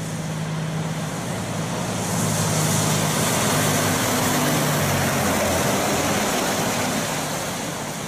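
MAN tanker truck and trailer driving along a wet road toward the listener: a steady diesel engine note under a broad hiss of tyres on the wet surface. It grows louder about two seconds in as the truck comes closer, and eases slightly near the end.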